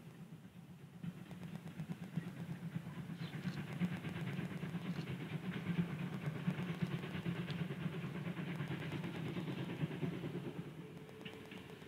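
Steam-hauled passenger train running past: a steady rumble with a fast, even beat, swelling through the middle and fading near the end.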